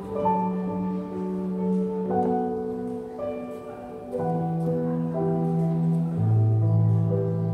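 Yamaha Montage 8 synthesizer keyboard playing slow, sustained chords that change every second or two, with deep bass notes joining about four seconds in.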